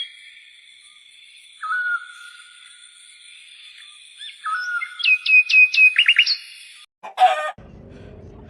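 Birdsong: clear whistled notes and quick trilled chirps, repeated in short phrases. Near the end a brief burst of another sound cuts in, followed by outdoor background noise.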